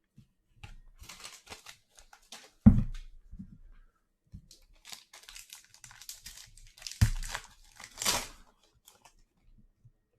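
Foil wrapper of a 2021 Donruss Football trading-card pack crinkling and being torn open, with a longer rip about 8 seconds in. Two sharp knocks on a tabletop come before it, about 3 and 7 seconds in.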